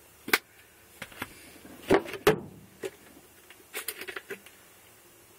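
A few scattered clicks and soft knocks of small handling noises in a confined space. The loudest come about two seconds in, with a small cluster about a second and a half later.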